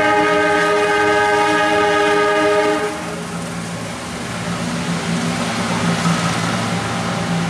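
Diesel locomotive horn of the Pasundan train sounding one long blast of about three seconds, cut off sharply. The locomotive's steady engine hum and the rumble of the train running through the station follow.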